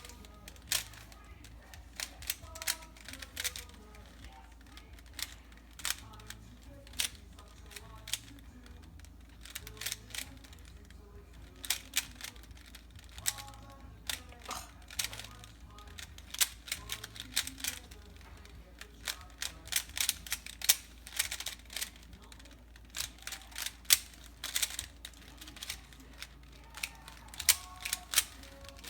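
Cyclone Boys 3x3 speedcube being turned quickly by hand: the plastic layers clack in irregular runs of sharp clicks with short pauses between. A TV plays faint voices and music underneath.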